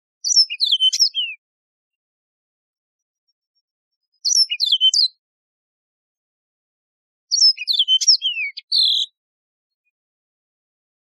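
Yellow-fronted canary (Mozambique serin) singing: three short phrases of high, quick, mostly downward-sliding notes, with silence between them; the last phrase is the longest.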